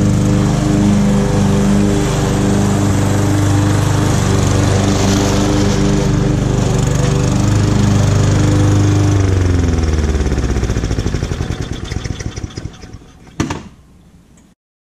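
Victa Classic Cut 18-inch petrol lawn mower engine running steadily, then winding down to a stop from about nine seconds in, its pitch sliding down as it dies. A single sharp knock comes just before it goes quiet.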